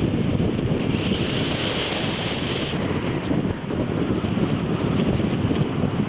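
Steady road and wind noise of a car driving along a mountain pass road, a continuous rushing rumble, with a thin high whine that wavers in pitch over it.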